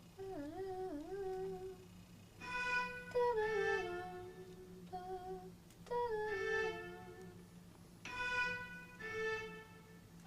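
Short phrases of a slow melody in violin-like bowed-string sounds, several notes sliding down in pitch, with brief pauses between phrases: a string part being tried out for a pop song.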